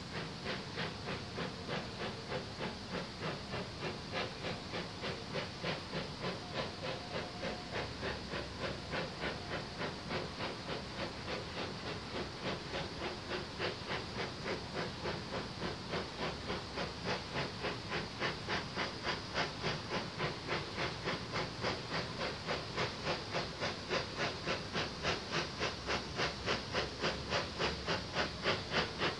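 Steam locomotive approaching while working steam, its exhaust beating in a steady rhythm of about three chuffs a second that grows louder over the last ten seconds or so.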